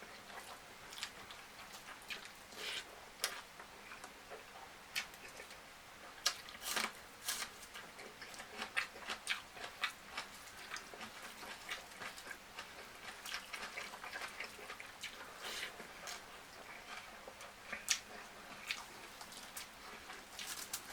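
A person chewing and eating a meal close to the microphone, with irregular short mouth clicks coming several to the second in places.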